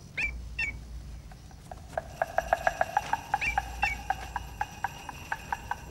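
Animal calls: a pair of short, sharply falling chirps near the start and again about three and a half seconds in, over a fast, uneven run of clicking, pitched notes that begins about two seconds in.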